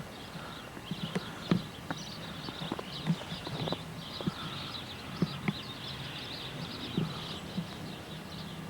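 Footsteps crunching through snow, coming as uneven thuds about once or twice a second, with faint high chirping behind them.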